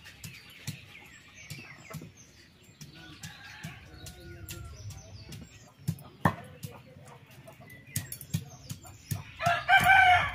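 Irregular sharp knocks of garlic being crushed with a stone pestle and chicken being cut on a boti blade, with small birds chirping faintly. Near the end a chicken gives one loud call.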